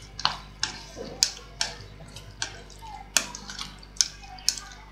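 Black plastic slotted spatula stirring raw chicken livers in lemon juice and salt in a bowl: wet squelching, with a sharp click of the spatula against the bowl about two to three times a second.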